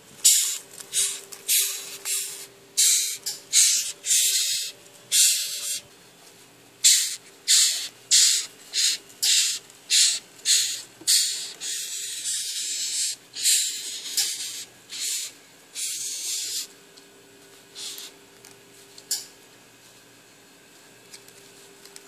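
Xylotrupes florensis rhinoceros beetle stridulating after being handled: a run of short raspy hisses, about one to two a second, that thin out near the end. It is the beetle's defensive squeak, made by rubbing its abdomen against its wing cases.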